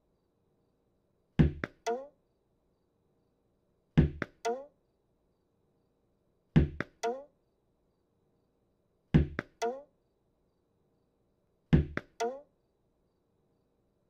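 Cartoon sound effect of a tennis ball thrown against a wall: a quick group of three thumps, the first loudest and the last with a short ringing tone, repeating about every two and a half seconds, five times.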